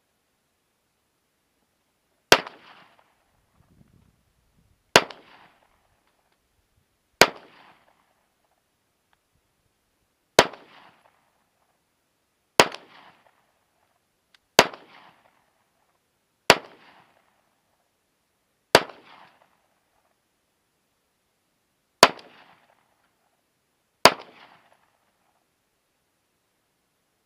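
Smith & Wesson M&P 9mm pistol fired ten times in slow, deliberate single shots about two seconds apart, with a longer pause before the last two. Each shot is a sharp crack followed by a short echo.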